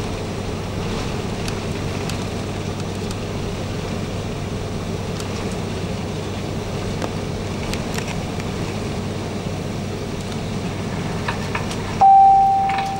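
Steady cabin hum of an Airbus A330-200 taxiing after landing, its Rolls-Royce Trent 700 engines at idle, with a few faint clicks. Near the end a single loud chime starts suddenly and fades over about a second: the cabin PA chime.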